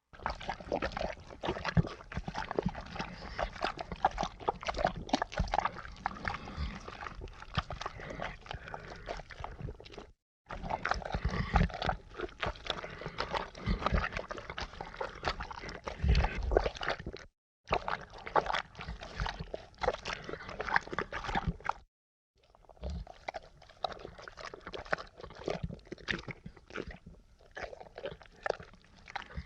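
Horror sound effects: dense, irregular crackling and clicking with low thumps, in four takes separated by brief silences.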